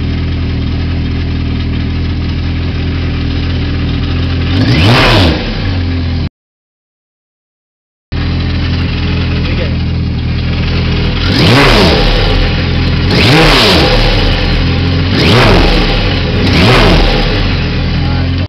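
Jet ski engine idling and being revved, once and then, after a gap of about two seconds, four more times in quick succession. Each rev rises and falls in pitch with a hiss of air on top, which the owner explains as excess air getting blown off.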